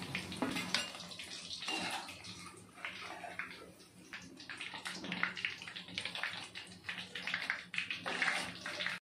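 Hot oil sizzling and crackling in a kadai as bread rolls deep-fry. It is an irregular, spitting hiss that cuts off abruptly near the end.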